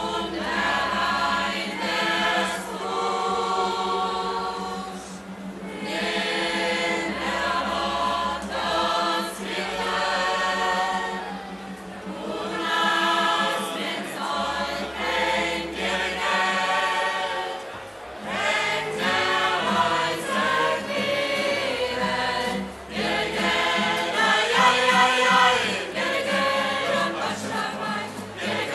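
Scout choir of children and adults singing together to acoustic guitar accompaniment, in sung phrases a few seconds long with short breath pauses between them.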